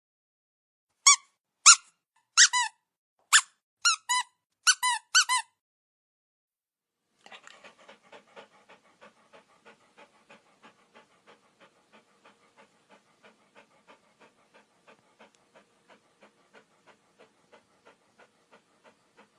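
A dog giving about ten short, high-pitched whining yelps in quick succession, each dropping in pitch. After a pause comes a faint, steady rhythm of about two to three breaths a second, like a dog panting.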